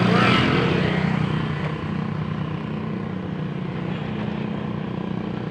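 A vehicle's engine running steadily while driving, with road noise; the sound eases a little about two seconds in.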